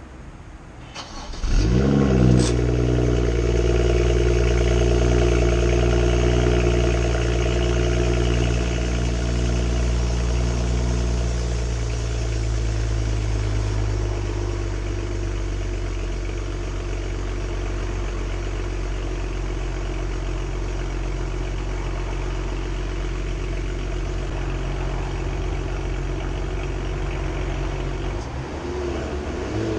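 A 2012 BMW 335i's turbocharged 3.0-litre straight-six cold-starting through its stock exhaust: a brief crank, then the engine catches with a rev flare about a second and a half in and runs at a high cold idle. The idle steps down twice, around twelve and fourteen seconds in, to a lower steady idle, and the deep drone thins out near the end.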